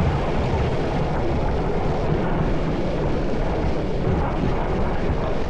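Steady, deep rumble of the electric rollerblade suit's wheels rolling fast over rough asphalt, mixed with wind rushing past the microphone.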